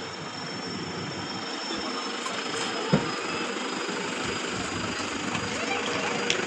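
Toyota Hilux pickup engine idling steadily, with one sharp knock about three seconds in.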